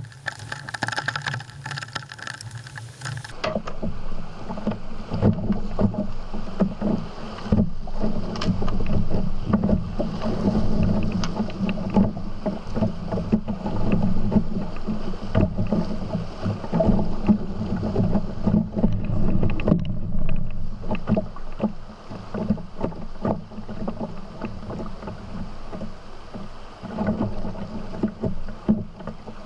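Canoe running down riffles and small rapids: river water rushing and splashing around the hull, with frequent small knocks and slaps against the boat. The sound changes abruptly about three seconds in.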